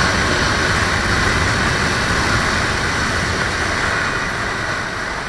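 Kawasaki Ninja 300 motorcycle at road speed: a steady rush of wind and road noise over the microphone with the engine underneath, easing off slightly toward the end.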